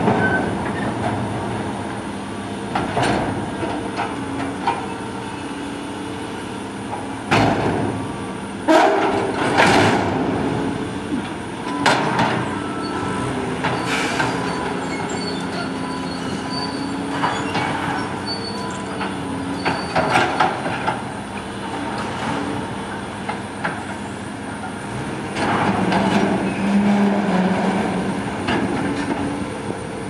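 Hydraulic excavator with a demolition grapple working a demolished building's rubble: its diesel engine runs steadily under repeated crashes of falling debris and high squeals of metal being dragged and torn. The heaviest crashes come about a third of the way in, with more around the middle and about two-thirds through.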